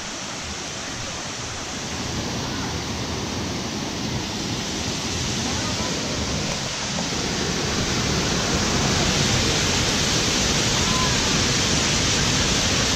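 A small waterfall and rocky stream rushing steadily, the water noise slowly growing louder.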